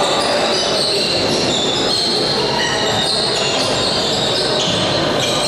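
Indoor handball game: a ball bouncing on the court amid a steady din of voices and court noise in a large hall.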